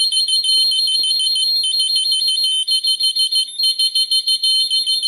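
An Ademco Vista-20PSIA burglar alarm is going off, tripped by opening a door while the system is armed. It makes a loud, fast, high-pitched warble between two tones, with a couple of brief breaks.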